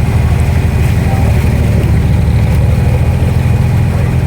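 Abra water taxi's diesel engine running steadily under way, a low, even drone.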